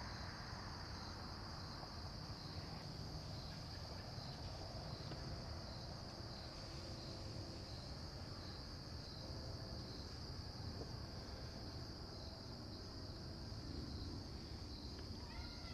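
Insect chorus, a steady high cricket trill with a faint regular pulse, over a low steady background hum.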